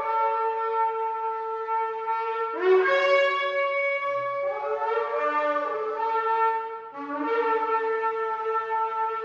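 Shofars sounding long, sustained blasts that overlap one another, held notes carrying on while new blasts start about two and a half, four and a half and seven seconds in.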